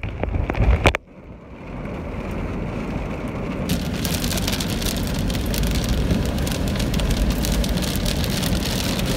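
Wind buffeting the microphone for about a second. Then, after a cut, heavy rain drumming on a car's windshield, heard from inside the car. The rain's dense, sharp pattering grows louder from about four seconds in.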